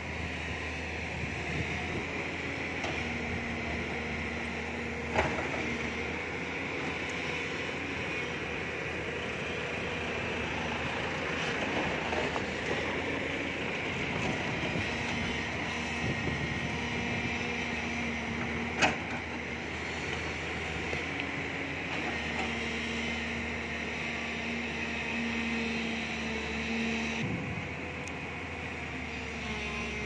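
JCB 205 tracked excavator's diesel engine and hydraulics running steadily as it digs into loose soil, with a steady hum. Two sharp knocks, about five seconds in and again about nineteen seconds in.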